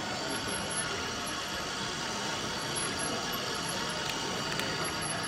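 Steady mechanical background noise, with a couple of faint clicks about four seconds in.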